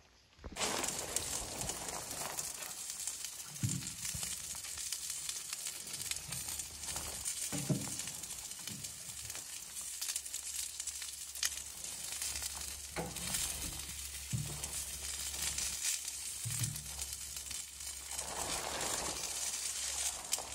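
Steady hiss of rain falling on a rain jacket and tent fabric, with a few soft thumps scattered through it.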